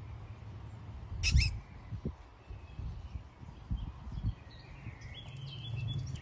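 Small birds chirping now and then over a low wind rumble on the microphone, with one sharp higher call about a second and a half in.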